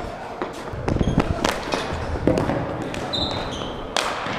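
Ball hockey play on an indoor rink: a string of sharp clacks and knocks from sticks and the ball hitting the floor and boards, with short high squeaks and a low rumble of players running.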